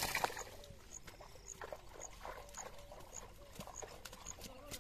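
Nylon cast net and dry grass rustling and crackling as hands pick through the tangled net, with a burst of crackling at the start and scattered small clicks after.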